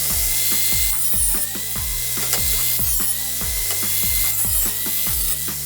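Electronic background music with a steady beat: a deep kick drum falling in pitch about twice a second over held bass notes, which shift about three and a half seconds in.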